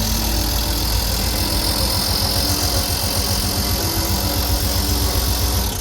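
Chevy G30 van's engine idling steadily just after starting, with its newly fitted water pump, belt and fan turning. The sound cuts off suddenly near the end.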